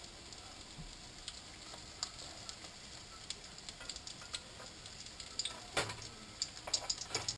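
Gorditas frying in melted Crisco shortening in a skillet: a low sizzle with scattered pops and crackles, growing busier and louder near the end as hot fat is spooned over them.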